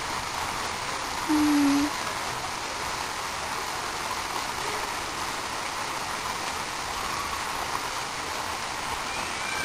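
Waterfall pouring into a pool, a steady rush of falling water. About a second and a half in, a brief low tone sounds for about half a second.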